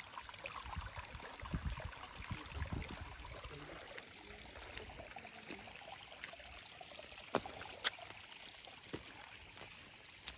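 Steady rush of flowing water, with a few sharp clicks scattered through the second half.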